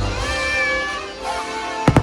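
Fireworks show soundtrack music with a high note sliding up and held, then a lower held note, and a sharp firework bang near the end.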